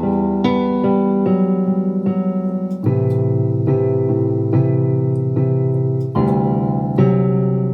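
Korg M1 synthesizer playing an electric-piano-type patch from a program bank: held chords that change every second or so, with a quick tremolo wobble in the volume for a couple of seconds near the start.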